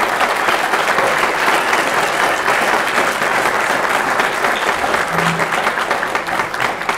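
Audience applauding: dense, steady clapping from a large room of people.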